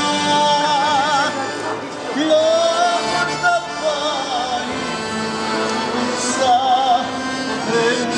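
Piano accordion playing a tune with a man singing along, his voice holding wavering notes with vibrato and sliding between pitches.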